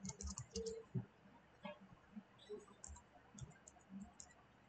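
Computer keyboard being typed on: a quick run of keystrokes at the start, then scattered single keys, all faint.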